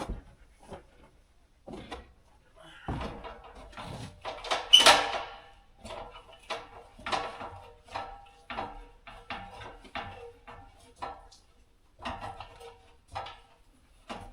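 Irregular knocks and metallic clanks of a ladder being climbed and overhead garage door hardware being handled, with the loudest clatter about five seconds in.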